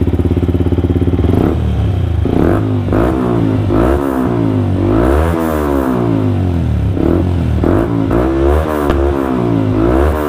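Yamaha R15 V3's single-cylinder engine, breathing through an aftermarket Akrapovič-replica slip-on exhaust with a carbon-fibre tip, idles for about a second and a half and is then revved in neutral in a string of quick throttle blips, its pitch rising and falling with each one.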